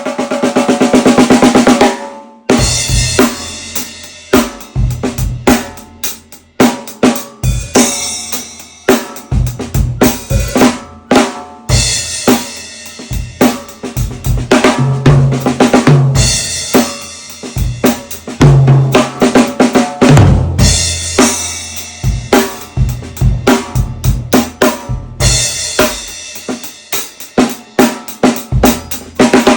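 A 14x8 maple/mahogany stave snare drum with an Ambassador coated head, played loud: a fast machine-gun roll for about two seconds, then beats and fills with bass drum and cymbals.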